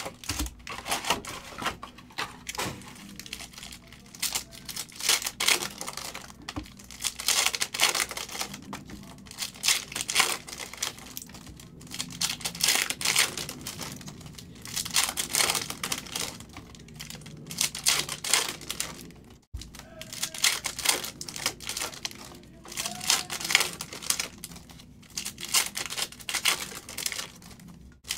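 Foil wrappers of 2022 Donruss Optic football hobby packs crinkling and tearing open in repeated bursts, with cards clicking and sliding against one another as they are flicked through.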